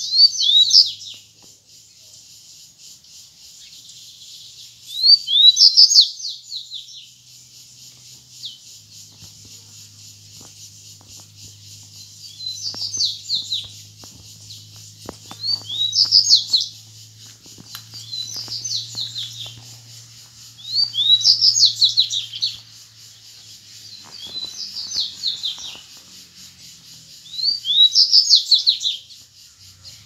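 Wild double-collared seedeater (coleiro) singing: short, rapid whistled phrases repeated about every three to four seconds, eight in all, some louder and some fainter.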